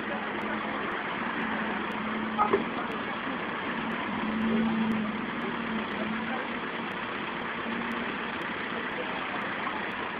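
City bus engine idling steadily amid street noise, with a low hum that comes and goes. Two sharp knocks come about two and a half seconds in.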